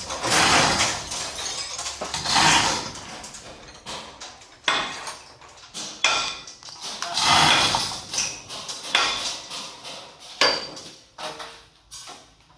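Irregular metallic clanks and knocks of steel parts and tools during work on a combine harvester's track undercarriage, some strikes briefly ringing.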